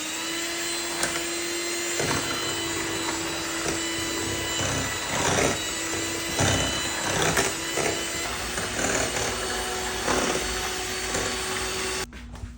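Electric mixer motor spinning up and running steadily as it mixes akara bean batter, with irregular knocks and clatter over the hum, then switched off about half a second before the end.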